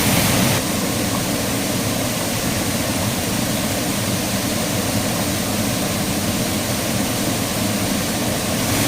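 Waterfall: a steady, loud rush of falling water, a little louder for the first half-second.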